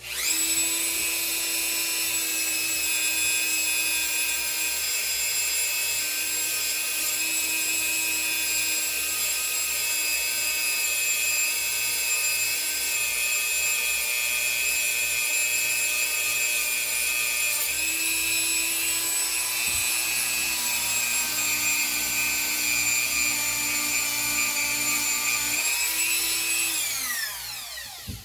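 Small high-speed rotary tool spinning up quickly, running with a steady high whine, then winding down with falling pitch near the end.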